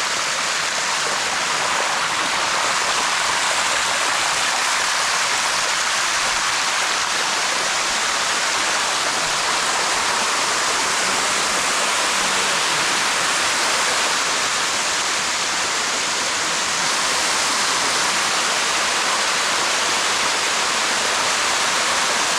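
Sticky Waterfall's water rushing down its limestone cascades, a loud, steady rush close to the microphone.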